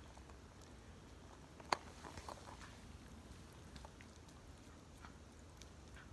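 A pet chewing food: faint, scattered small clicks of its eating, with one sharper click a little under two seconds in.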